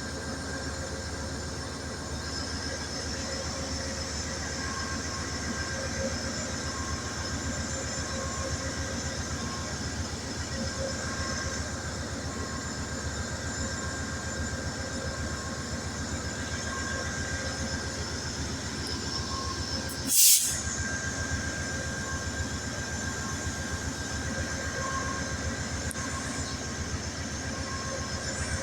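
Amtrak passenger train's steady mechanical hum with several constant tones, and one short, sharp hiss about two-thirds of the way through.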